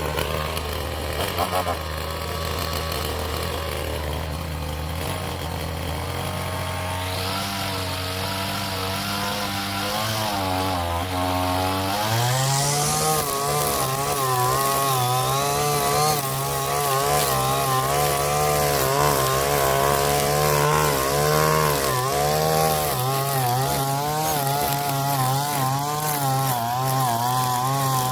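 Small gas engine of a handheld yard tool running at low speed, then revving up about twelve seconds in and running fast, its pitch wavering up and down.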